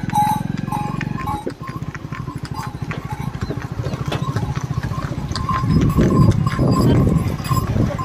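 Working oxen pulling a cart: hooves clopping and neck bells clinking in a steady walking rhythm, with music and voices over it.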